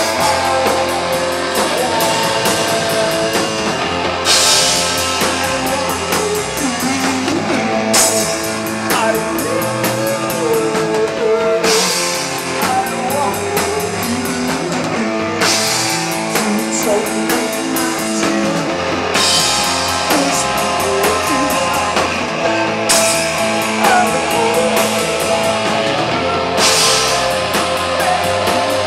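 Live rock band playing loud: electric guitar and drum kit with a singer shouting into the microphone, and a bright crash accent about every four seconds.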